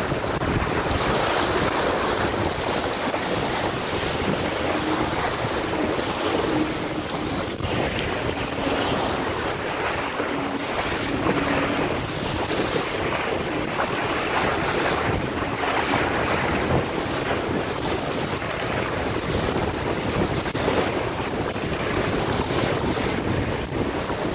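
Strong wind buffeting the microphone over the rush and splash of choppy water against the hull of a Laser dinghy sailing fast, heeled in gusty conditions.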